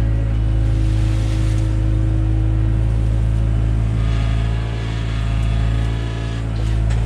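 Diesel engine of a Takeuchi TB175 excavator running steadily with a deep, even hum while it works.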